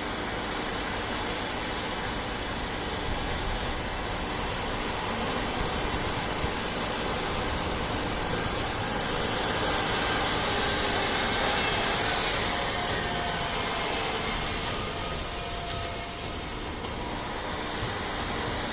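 Heavy harvest machinery running with a steady mechanical din, growing a little louder about ten seconds in and easing off again.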